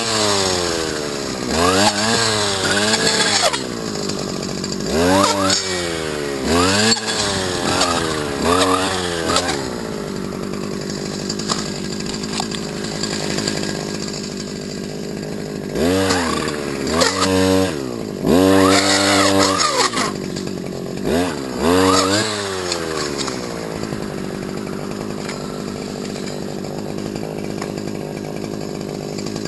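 STIHL FS250 brush cutter's small two-stroke engine, revved up and let fall back to idle again and again, with spells of steady idling between the bursts of throttle.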